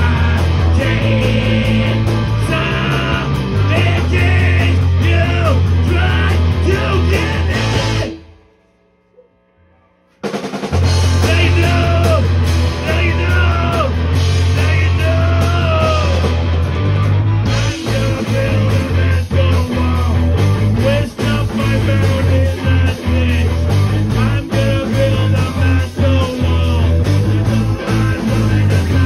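Punk rock band playing live: distorted electric guitars and a drum kit, with a man singing into a microphone. About eight seconds in the music cuts out suddenly for about two seconds, then comes back in at full level.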